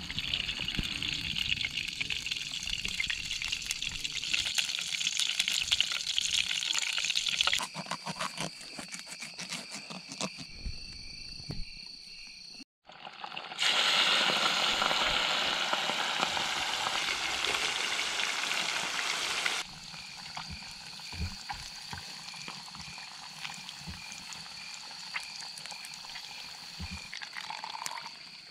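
Running creek water, heard across several cut-together shots, loudest in a stretch midway through. In the quieter final third, a steady high-pitched chirring and a regularly repeating pulsed call sound over the water.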